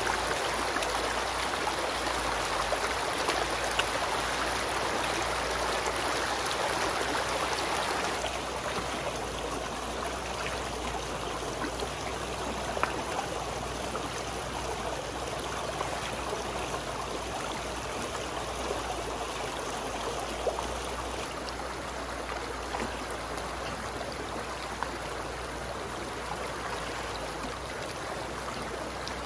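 Shallow stream running over rocks, a steady rush of water that drops slightly in level about eight seconds in, with a few faint clicks over it.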